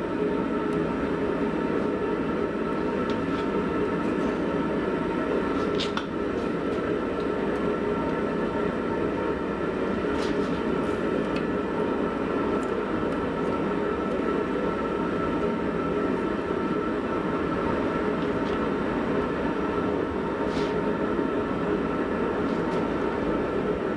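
Forge running, a steady rushing noise with a constant hum through it, with a few faint light clicks.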